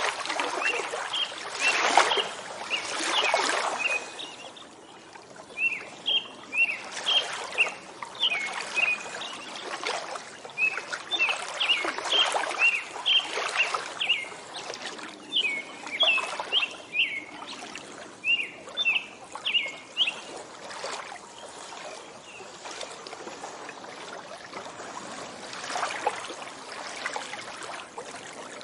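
Small waves lapping and splashing at a lakeshore, with a bird giving a long run of short, quick chirps that stops about three-quarters of the way through.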